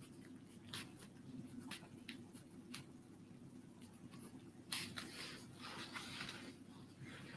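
Pen writing on paper: faint scratching strokes and light ticks, growing denser about two-thirds of the way through, over a low steady hum.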